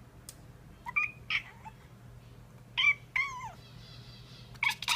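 Bengal cat making short chirping calls at birds, about six in three close pairs, one sliding down in pitch near the middle.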